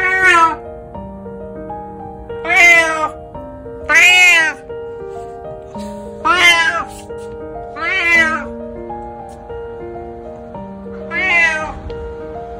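An elderly calico cat meowing six times, a second or two apart. Each meow rises and then falls in pitch, over soft background music.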